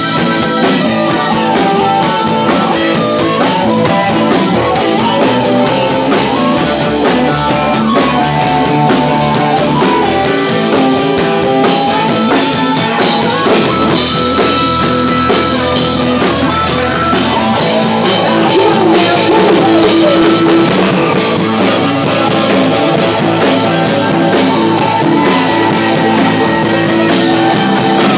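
Live rock band playing loudly, with electric guitar, bass guitar and drum kit.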